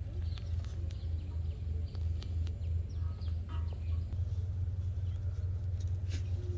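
Faint bird chirps over a steady low hum.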